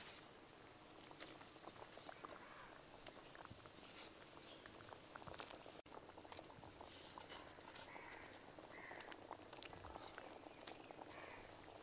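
Thin curry gravy boiling faintly in an aluminium kadai, with many small scattered pops of bursting bubbles.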